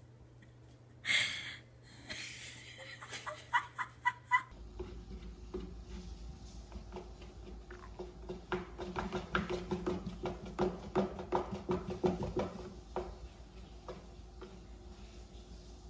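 Domestic cat sounds: a short loud cry about a second in, a quick run of high chirps near four seconds, then a long stretch of rapid, pulsing vocal sounds.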